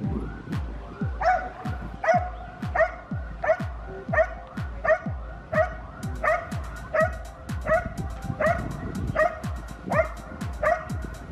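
Belgian Malinois barking steadily at a helper hidden in a blind, about three barks every two seconds: the bark-and-hold of an IGP protection routine.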